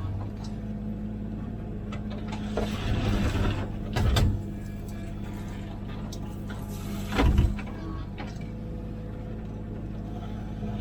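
Komatsu PC16 mini excavator's diesel engine running steadily while digging, with two heavy knocks about four and seven seconds in and a short rough scraping stretch around three seconds in.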